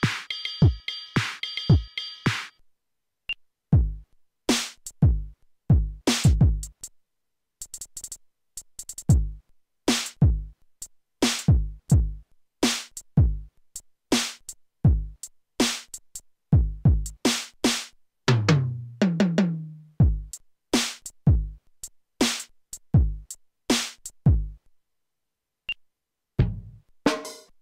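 Roll-up electronic drum kit's built-in speaker playing sampled drum sounds as its pads are struck with drumsticks: kick drum and snare and cymbal hits in a loose beat, each sound cutting off cleanly. About two-thirds through there is a quick fill down the toms.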